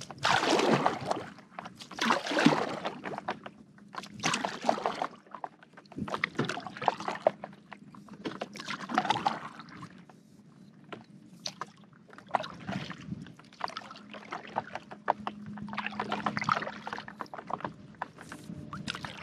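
Stand-up paddleboard paddle strokes: the blade dipping and pulling through the water with splashes and drips, a stroke about every two seconds, softer after the first few.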